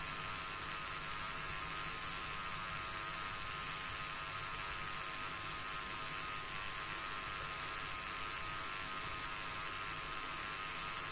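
A steady electrical hum with a constant high hiss over it, unchanging throughout, with no other sound standing out.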